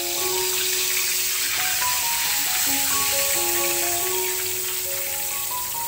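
Chicken chops sizzling steadily as they deep-fry in hot oil, under background music playing a simple melody of single notes.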